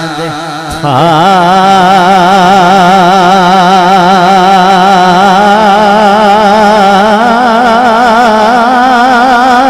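A man's voice singing a Punjabi naat, holding one long drawn-out note with a wavering vibrato that starts about a second in and steps slightly higher about seven seconds in.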